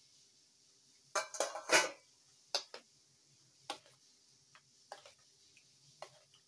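Metal kitchenware clattering: a stainless-steel colander knocking against a steel mixing bowl as it is emptied, a quick run of clanks about a second in, then a spoon clinking against the bowl a handful of times while stirring a thick yogurt mix.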